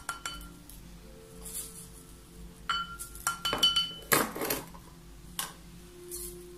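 Glass jar, glass dish and a wooden spoon clinking together as dried rose petals are scooped: a scattering of sharp clinks with a brief ring, most of them between about three and four and a half seconds in, and a short dry scrape of petals among them.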